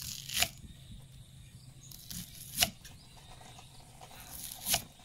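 Kitchen knife slicing through a fresh Kim Sung bamboo shoot on a thick wooden chopping block: three cuts about two seconds apart, each a short rasp ending in a knock as the blade meets the wood.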